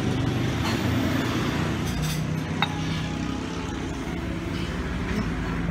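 Street traffic running past: the steady hum of motor-vehicle engines, motorcycles, tricycles and cars. A single sharp clink about halfway through.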